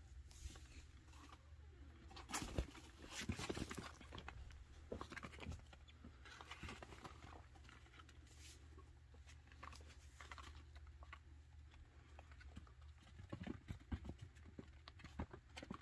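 Faint light pattering and scattered soft taps of baby chinchillas scurrying over a cloth couch cover, with a few louder taps a few seconds in, over a low steady hum.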